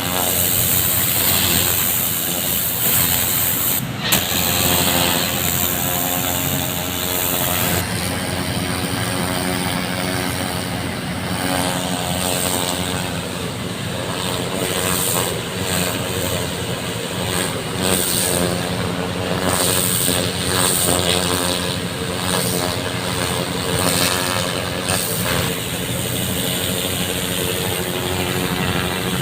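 An engine running steadily, with a loud hiss of water jetting from a flushing hose over it.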